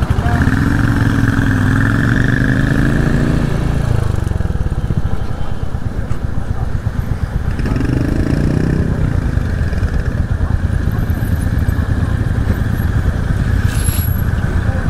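Motorcycle engines running at low speed, with the close rider's engine making a rapid low beat. Twice the engine note rises, in the first few seconds and again around eight seconds in, as a bike pulls away.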